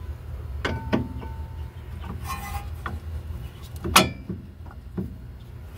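Metal clinks, knocks and a short scrape as a disc brake caliper is worked down over new brake pads, with the sharpest click about four seconds in.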